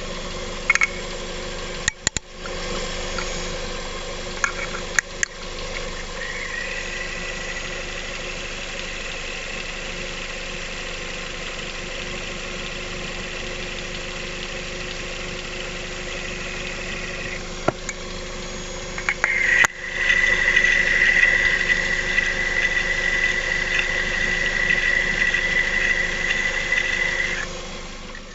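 Lada Vesta 1.8 engine idling with the timing belt exposed, as picked up through a listening device. A steady high whistle from the timing-belt rollers fades in, drops out for a couple of seconds, then returns louder; the owner finds the tensioner roller the noisiest, a sign of its worn bearing. A few sharp knocks and brief dropouts come as the pickup is moved.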